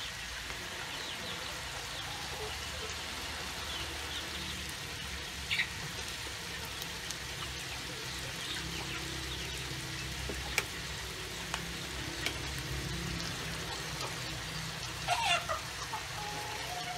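Sliced vegetables frying gently in a steel wok, a steady low sizzle. A few sharp taps, the loudest a cluster near the end, as eggs are cracked on the wok's rim and dropped in.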